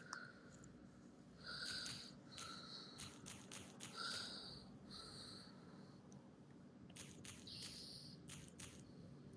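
Gas fan heater running with a steady low hum, under about eight short, irregular breathy bursts with clicks. The bursts are not snoring, which is said of the noise shortly afterwards.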